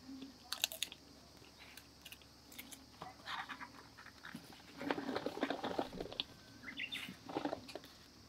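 Rustling of bicycle handlebar tape being handled by hand, in several short bursts with the longest about five seconds in.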